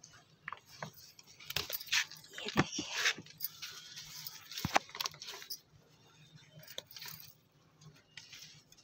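Eggplant leaves and stems rustling as hands pick the fruit off the plant, with a few sharp snaps and crinkles.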